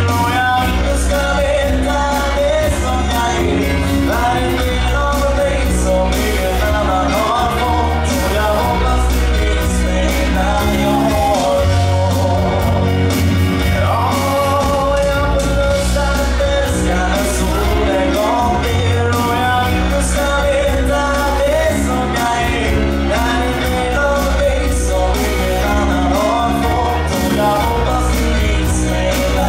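Live band playing: a male lead vocalist sings through a microphone over electric bass, keyboard and drums.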